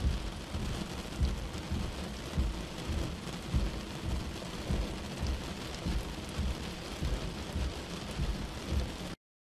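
Tropical-storm weather: a steady rush of wind and rain, with uneven low rumbles all through. It stops suddenly near the end.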